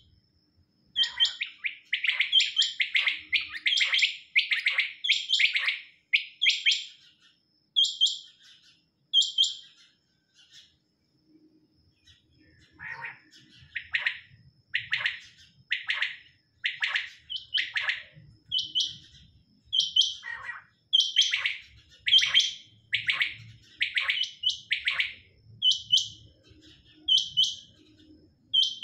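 Several caged quails calling over and over in short, sharp notes, about one a second and at times overlapping. The calls pause for a couple of seconds about a third of the way in.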